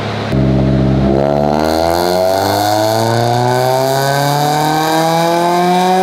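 Single-cam Honda four-cylinder engine making a wide-open-throttle pull on a chassis dyno. It jumps in loudness about a third of a second in, then its pitch climbs steadily as the revs rise under load.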